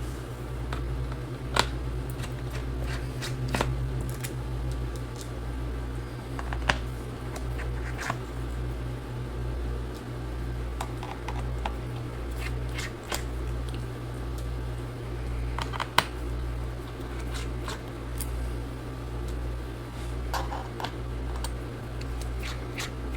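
Small, scattered clicks and taps of a pentalobe screwdriver and tiny screws being removed from a MacBook Pro's aluminium bottom case, over a steady low hum.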